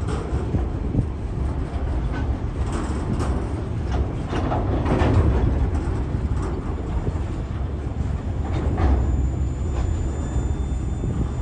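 Freight train of bogie hopper wagons rolling past at speed: a steady low rumble of steel wheels on rail, broken by several sharp clanks.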